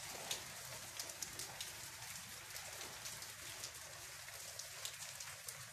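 Rain falling on wet paving in a stone lane: a steady hiss dotted with many small, sharp drop ticks.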